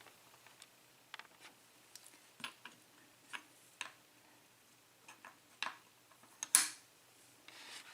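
Scattered light clicks and taps from small hard objects being handled, coming at uneven intervals, with one louder knock about six and a half seconds in and a short rustle near the end.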